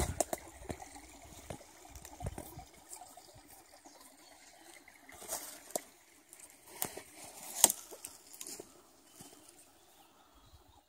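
Footsteps and rustling through wet forest undergrowth, with scattered sharp snaps and clicks, the sharpest about two-thirds of the way in, over a faint trickle of a small stream; it goes quieter near the end.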